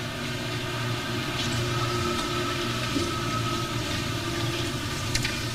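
Steady low hum and hiss of room and recording noise, with a faint held tone, and a brief tap about five seconds in.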